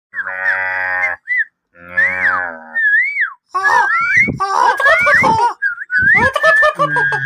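A series of animal sound effects: a low, cow-like moo twice in the first few seconds, then whistled, birdlike up-and-down glides and a busy run of chirps and warbles.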